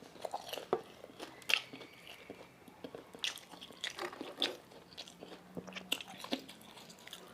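Close-up chewing and crunching of pan-fried pork buns with crisp fried bottoms, in irregular short crunches.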